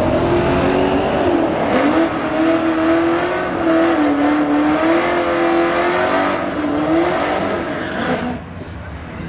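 Muscle car engines running loud at a drag strip starting line: a wavering engine note over a harsh rumble, which drops off sharply about eight seconds in.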